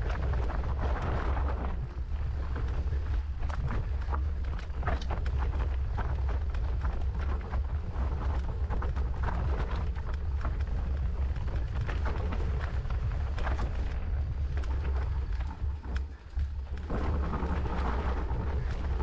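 Mountain bike clattering down rough trail, with frequent sharp knocks and rattles over a constant low rumble of wind on the microphone; the rumble drops out briefly near the end.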